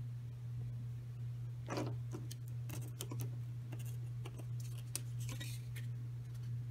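A thin shrink-plastic sheet handled by hand, rustling and clicking in short scattered bursts as it is lifted off a printed photo, over a steady low hum.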